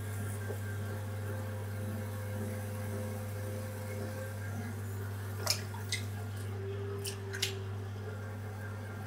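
Potter's wheel turning with a steady low hum while wet clay is worked by hand on it, squishing softly. A few light sharp clicks come a little past the middle.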